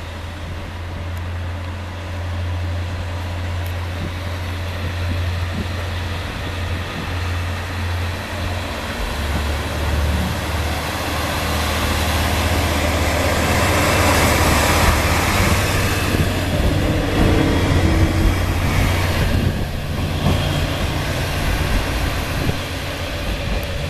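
KiHa 40-series diesel railcar train running under power along the platform: a steady low engine drone, with engine and wheel-on-rail noise building as the train draws past, loudest a little past the middle, then easing slightly as it pulls away.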